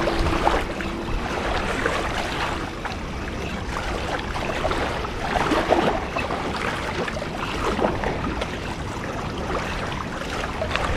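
Strong gusty wind buffeting the microphone in a windstorm, a heavy, uneven rumble over rushing, choppy water.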